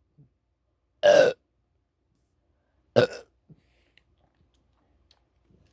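A young man burping twice, bringing up gas from a just-chugged Coke. The first burp, about a second in, is loud and lasts about a third of a second; the second, about three seconds in, is shorter and sharper.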